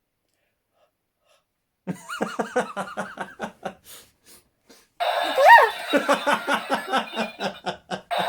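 A person laughing in quick breathy bursts, about four or five a second. About halfway through, a steady noisy electronic sound cuts in suddenly, with a short rising whoop, and carries on under the laughter.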